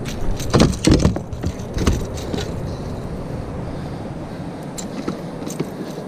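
A cluster of knocks and thumps in the first two seconds or so as a trout is unhooked and dropped onto the carpeted floor of an aluminium fishing boat, then a couple of faint clicks over steady wind and water noise.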